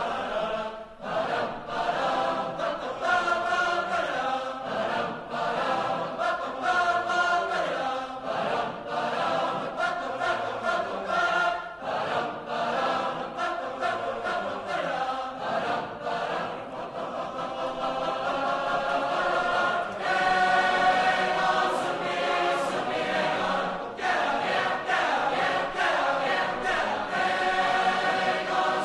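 Background music: a choir singing.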